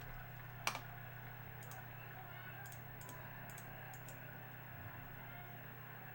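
Faint clicking, as of a computer keyboard and mouse: one sharp click about a second in, then scattered lighter clicks, over a steady low hum.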